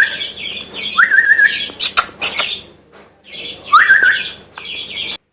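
A person whistles a rising, wavering call several times, and hungry young parrots answer with harsh, raspy begging squawks.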